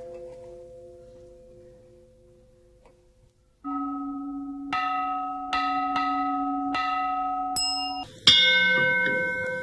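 Bells ringing: a long ringing tone fades almost to nothing, then after a brief lull a run of about six struck, ringing notes follows, each overlapping the last, the final one the loudest.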